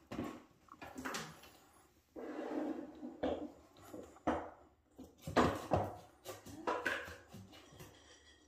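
Irregular knocks and clatter of dishes, with a short rattling rush about two seconds in: a dog's meal being got ready.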